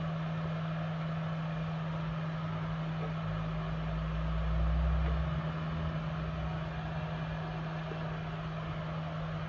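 JCD 8858 hot air gun's handpiece fan blowing steadily, an airy hiss over a constant low hum, as the station cools down with its temperature reading falling. A low rumble swells briefly about four seconds in.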